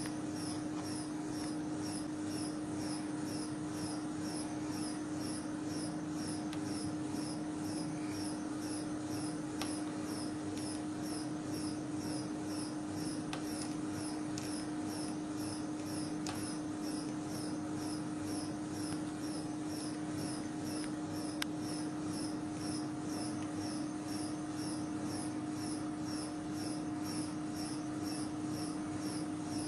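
Steady hum of the bending-test machine with a regular high-pitched chirp repeating evenly throughout. A few faint sharp ticks, the clearest about two-thirds of the way in, as the carbon-textile reinforced geopolymer panel cracks under the load.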